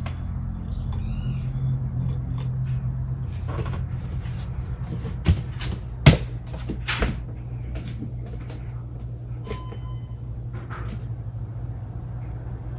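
Hunter Original ceiling fan running with a steady low motor hum, after its break-in period. Scattered clicks and knocks sound over the hum, the loudest about six seconds in.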